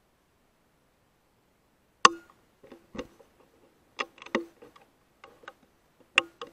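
Sharp, irregular clicks and knocks of a rifle and its scope-mounted digital night-vision recorder being handled. They start about two seconds in, some with a short ring, and the loudest come at the first click and near the end.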